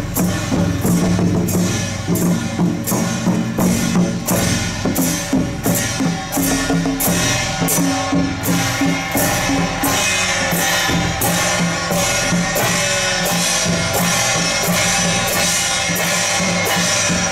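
Temple procession drum-and-cymbal troupe playing: large drums and pairs of brass hand cymbals strike a steady beat of about two strikes a second. Steady pitched tones run underneath.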